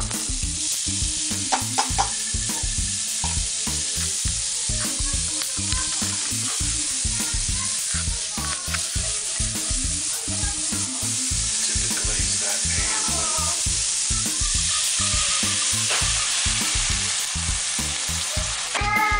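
Diced onions sizzling in a hot stainless-steel skillet. The sizzle starts suddenly as they are tipped in and keeps going steadily as they are stirred.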